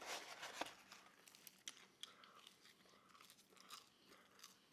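Close-miked mouth sounds of someone chewing a thin-crust pepperoni pizza. A louder bite or chew comes in the first second, then softer, scattered mouth clicks.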